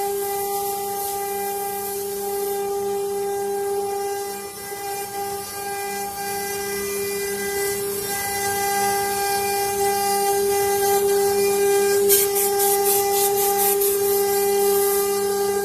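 CNC router spindle running with a steady high whine and a hiss as it carves. About three quarters of the way through, a rapid scratchy ticking of cutting joins in and the sound grows a little louder.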